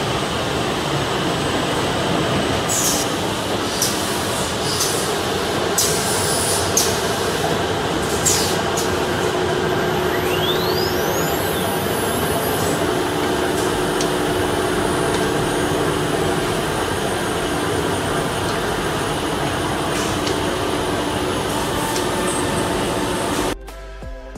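SM-1325R1B nesting CNC router running: a steady, loud machine noise with a few sharp clicks in the first half and a brief gliding whistle near the middle. It cuts off suddenly about a second before the end.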